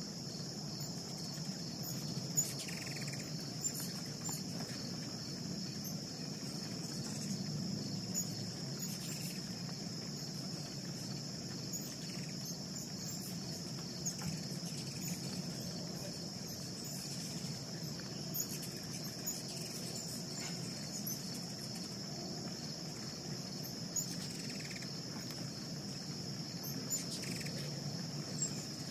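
Steady high-pitched chorus of insects, with faint short ticks scattered through it.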